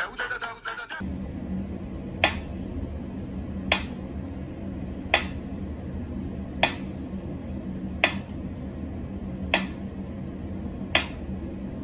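Mechanical pendulum metronome ticking slowly and evenly, about one sharp tick every second and a half, over a low steady hum.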